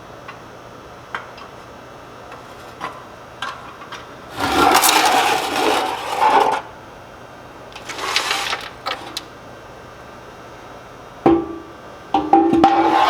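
Metal scraping and clanking as ash is worked out of a woodburning stove: a few light clinks, then two bouts of harsh scraping, a sharp metal knock, and a last scrape with a ringing metal tone near the end.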